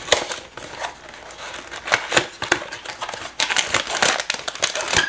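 Cardboard blind box being torn open by hand, then a plastic-wrapped figure pulled out with the bag crinkling; irregular crackles and rustles, thickest in the last couple of seconds.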